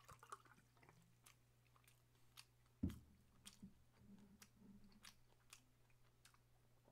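Near silence with faint scattered clicks, broken by one dull thump about three seconds in as a plastic makgeolli bottle is set down on the table. Faint mouth and swallowing sounds follow as makgeolli is drunk from a glass mug.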